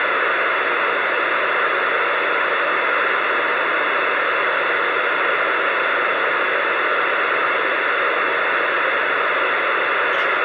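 Steady hiss of static from a CB radio receiver on an open channel with nobody keyed up.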